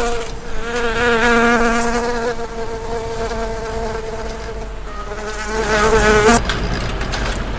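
A flying insect buzzing with a fly-like drone that wavers slightly in pitch. It swells near the end, then stops abruptly about six and a half seconds in.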